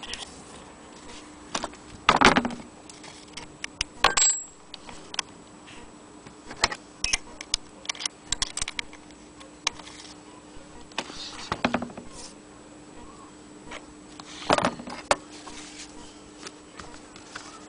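Irregular metallic clicks, clinks and knocks from the metal parts of an 1870 Maxfield Agenoria sewing machine being handled, with louder clanks about two, four and fourteen seconds in. A faint steady hum runs underneath.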